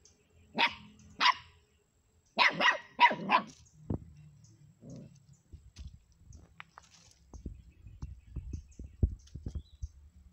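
Puppy yapping: about six sharp, high barks in the first three and a half seconds. Quieter low knocks and scuffling follow.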